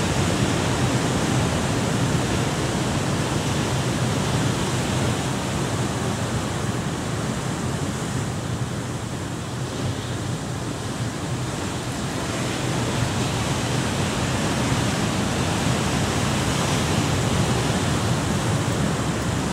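Sea surf breaking and washing over shoreline rocks: a loud, steady rush of waves, easing a little about halfway through.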